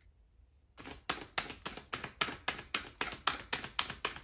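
Deck of oracle cards being shuffled by hand, starting about a second in, with the cards slapping together about four times a second.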